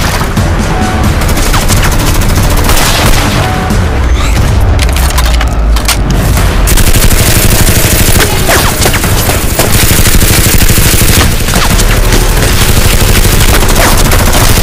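Edited-in gunfire sound effects: continuous rapid automatic fire mixed with heavy booms, standing in for the Nerf blasters, which make no such sound themselves.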